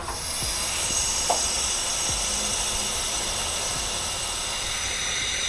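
Wet/dry vacuum running steadily, sucking the used cleaner solution out of a CNC machine's coolant sump: a constant hissing rush with a high motor whine, starting abruptly.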